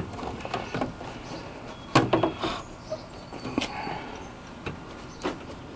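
Scattered clicks and knocks of a 2001 Ford E-350 van's rear door latch and lock linkage being fitted by hand, the loudest about two seconds in.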